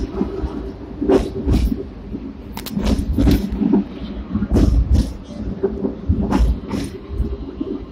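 Hong Kong seventh-generation tram running along its track: a steady rumble and hum, broken by frequent, irregular sharp clacks and rattles.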